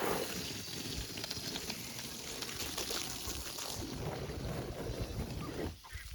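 A steady rushing pour that starts suddenly and dies away shortly before the end.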